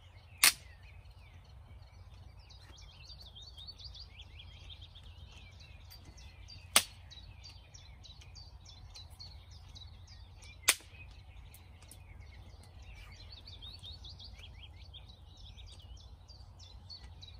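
Wood fire in a bushcraft oven popping sharply three times, several seconds apart, with birdsong chirping throughout.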